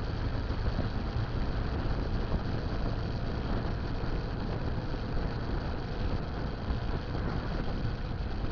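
Motorcycle riding at a steady road speed: the engine's steady low hum under continuous wind and road noise, picked up by a cheap camera mounted on the bike.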